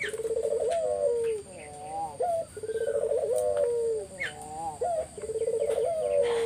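A puter (Barbary dove) cooing vigorously, a 'gacor' lure call. It repeats a rolling, pulsed coo followed by a few bending notes, about three phrases.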